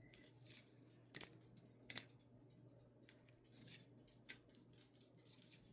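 Tarot cards being handled in a quiet room: a few soft, sharp clicks and taps of cards, the clearest about two seconds in, over near silence.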